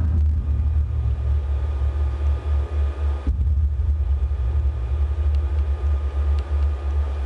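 Deep, wavering rumble from piezo contact microphones on metal ceiling wires, amplified through the installation's speakers.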